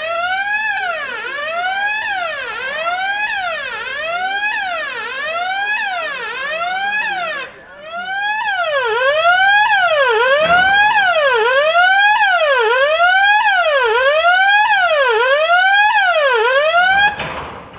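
Level-crossing warning siren wailing, its pitch rising and falling about once a second. It breaks off briefly about seven and a half seconds in, comes back louder, and cuts off near the end.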